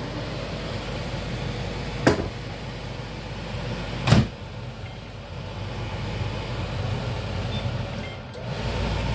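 Two sharp knocks about two seconds apart, the second louder and heavier, over a steady low hum. Near the end the hum drops out briefly, then comes back louder.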